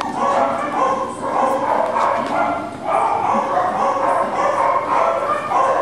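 Cockapoo puppy yapping over and over, about two high-pitched barks a second.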